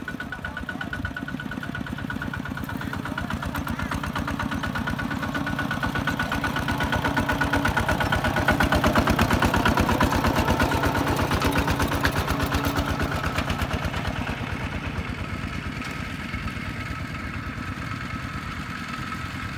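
Kubota ZT155 walking tractor's single-cylinder diesel engine running with a fast, even beat as the tractor drives past: it grows louder to a peak about halfway through, then fades as the tractor moves away.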